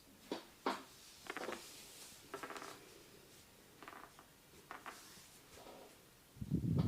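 Massage hands working on a person's head and body: a series of short sharp clicks and quick rattling taps, then a louder dull thump near the end.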